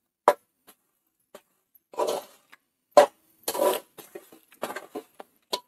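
Metal spoon scraping and knocking against the sides of an aluminium pot while stirring thick jaggery syrup that is nearly ready. The sounds come as separate short strokes with silence between, more frequent in the second half.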